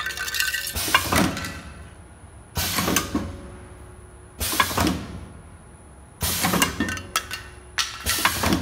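Semi-automatic tube filling and sealing machine cycling: about every two seconds a sharp clack with a burst of air hiss that fades away, as its pneumatic cylinders fire to index the turntable and close the sealing jaws, with lighter metallic clinks in between.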